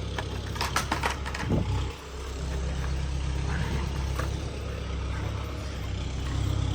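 A vehicle engine running steadily with a low rumble, with a few sharp knocks in the first two seconds.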